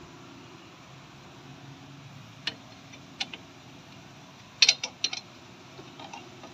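Sharp metallic clinks and taps of hand tools on brake parts as a car's front brake is refitted. There is a single click about two and a half seconds in and another about three seconds in, then a quick cluster of louder clinks just before five seconds, and faint taps near the end, all over a steady low hum.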